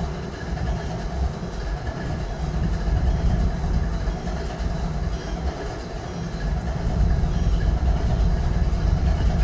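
GE ES40DC diesel-electric locomotive's GEVO-12 V12 diesel engine idling: a steady deep rumble that swells louder a few seconds in and again near the end, with a faint steady whine above it.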